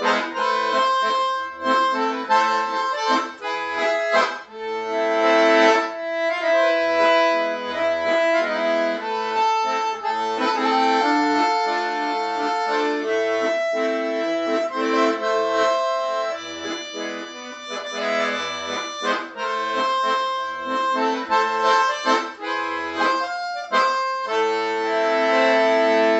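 Piano accordion playing a tune in the key of E: a right-hand melody over short, separate bass-button notes, settling about two seconds before the end onto a long held chord.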